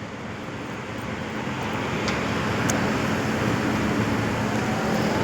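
Road traffic noise: a steady rushing of passing vehicles that grows gradually louder.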